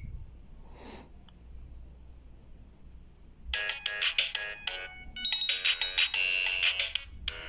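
An Alcatel OT-2005D ringtone played through a Samsung GT-B7722i phone's loudspeaker. It starts about three and a half seconds in as a brisk melody of short electronic notes, with brief breaks.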